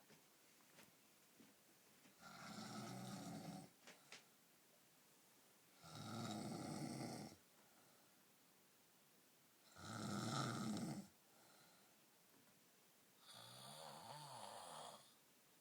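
A sleeping man snoring: four snores about every four seconds, each lasting about a second and a half, the last one wavering in pitch.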